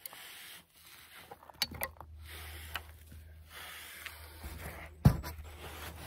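Rubbing and scraping noises from handling soil and foam board, with a few light knocks and one sharp thump about five seconds in, over a steady low hum.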